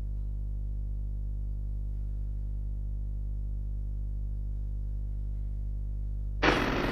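A steady low droning hum made of many even overtones, unchanging in level; this is the strange sound the clip presents as heard during the earthquake. About six and a half seconds in, a sudden loud, harsh burst lasting about half a second cuts across it.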